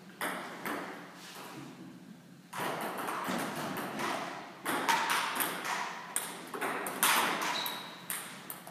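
Table tennis rally: the ball clicks in quick succession off the bats and the table, a run of sharp pocks.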